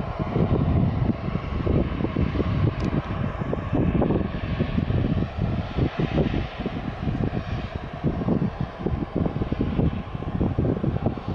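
Jet airliner engines running, a steady loud rush swelling somewhat in the middle, with low flickering wind buffeting on the microphone.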